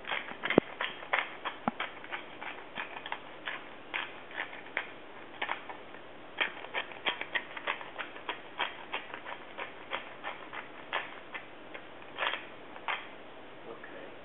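Hand-held pepper grinder twisted back and forth, grinding black pepper in a long run of quick, sharp clicks, about three a second.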